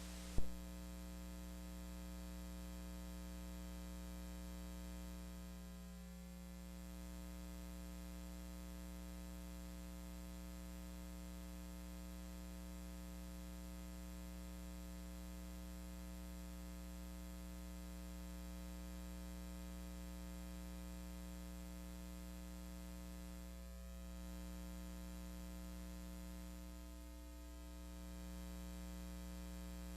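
Steady electrical hum and buzz with a faint hiss, held unchanged throughout, with one brief click just after the start.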